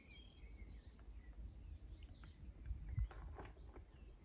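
Small birds chirping and twittering faintly, over a low rumble, with a dull thump about three seconds in.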